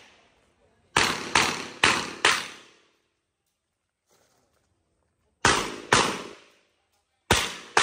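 Revolver shots fired in quick strings during a practical-shooting stage: four shots about half a second apart about a second in, two more a few seconds later, and two more near the end, each with a short echo tail.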